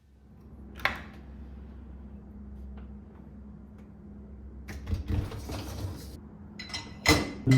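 Indoor handling sounds: a sharp click about a second in, a few knocks and clatters around five seconds and another near the end, over a steady low hum.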